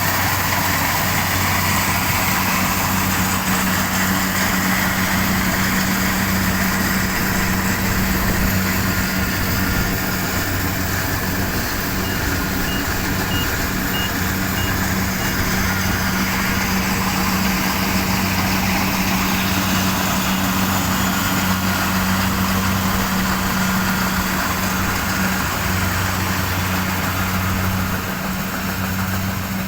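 An engine running steadily at a constant speed, with a short run of faint high beeps about halfway through.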